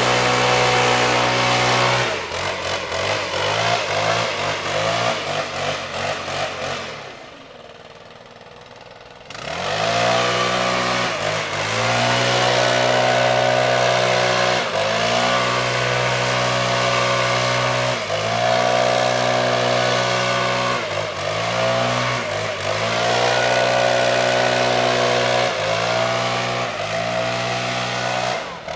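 Two-stroke leaf blower engine running at high throttle. It drops to a rougher, lower running and then briefly to a quieter hum. After that it is throttled up again and again, each time rising in pitch and holding.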